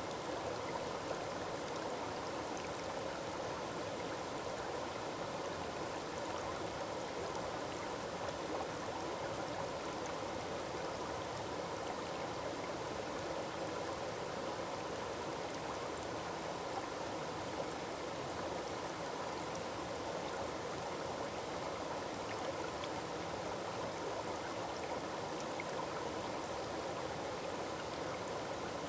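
Forest waterfall: water falling and rushing steadily, with an unbroken, even splashing.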